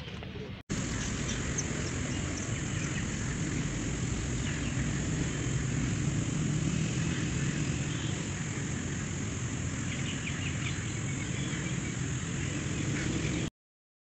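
Steady outdoor ambience: insects shrilling in a constant high-pitched drone over a low rumble. It cuts off suddenly shortly before the end.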